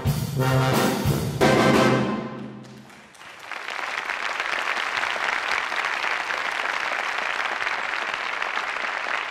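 Brass quintet of two trumpets, French horn, trombone and tuba with a drum kit playing its final loud chords, punctuated by drum hits and cut off about two and a half seconds in. Audience applause then rises and carries on steadily.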